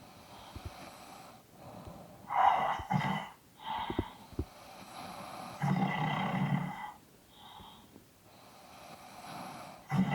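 Two people snoring in their sleep, with loud snores a few seconds apart and quieter breaths in between.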